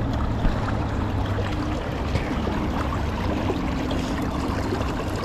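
Steady rush of river current around a wader standing in the water, with a few light splashes from the landing net and the salmon in it.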